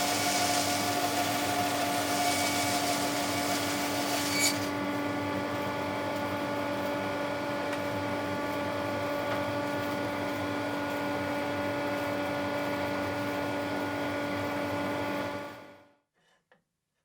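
Bandsaw running and slicing a fruit-tree log into boards. A high hiss of sawing lasts about four and a half seconds, then the saw hums on steadily and more quietly, and the sound stops suddenly about a second before the end.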